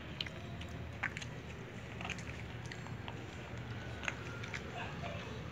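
Dogs eating dry kibble off a plastic tray: crunching with irregular sharp clicks.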